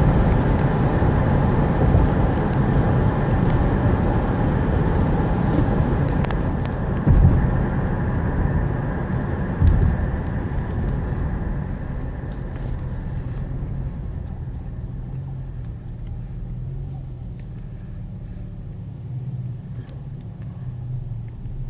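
2001 Nissan Xterra running on the road, loudest for the first ten seconds with two brief louder jolts around seven and ten seconds in, then growing steadily quieter as it eases off.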